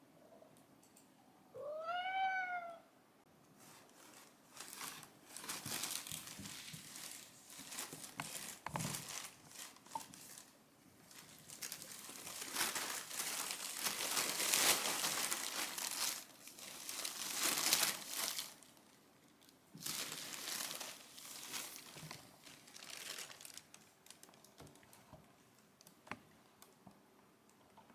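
A cat gives one meow that rises and falls, about two seconds in. Then a thin plastic shopping bag crinkles and rustles in bursts for some twenty seconds as a cat crawls into it and moves about inside.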